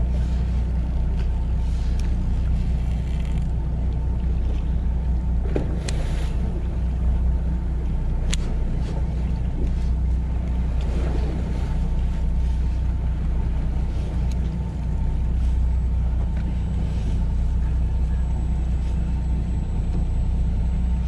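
A fishing boat's engine running with a steady low drone, with a few brief clicks over it.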